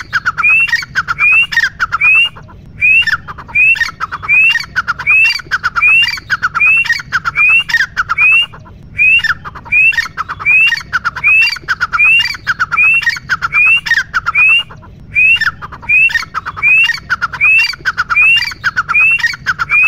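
Grey francolin calling: a loud, rising note repeated a little under twice a second in long runs, broken by three short pauses.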